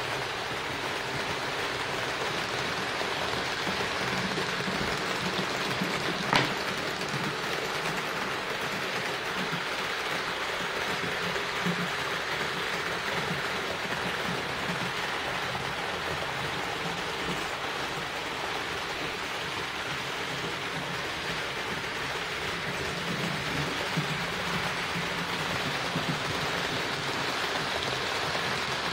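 HO-scale model train running on the layout's track out of sight: a steady rolling rattle of wheels on rails with a low motor hum, and one sharp click about six seconds in.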